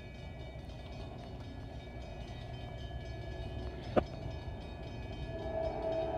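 Horn of an approaching Norfolk Southern diesel freight train sounding in the distance, a chord of steady tones that grows louder from about five seconds in, over a low steady rumble. A single sharp click about four seconds in.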